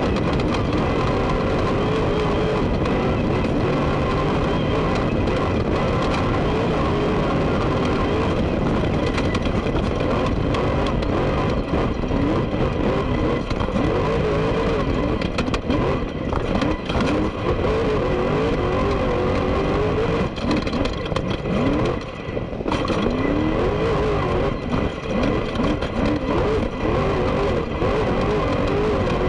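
Class 1 desert race car's engine heard from inside the cockpit at speed under a steady loud din, its pitch rising and falling repeatedly as the throttle is worked. There is a short lift off the throttle a little past the middle.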